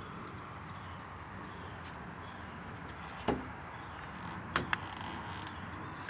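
Steady outdoor background with a faint high insect drone, broken by a sharp click a little past halfway and two quick clicks about a second later.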